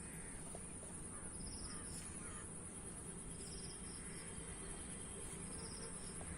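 Insects chirping: a continuous high-pitched drone with short pulsed trills repeating about every two seconds. A few faint bird calls come in the first couple of seconds.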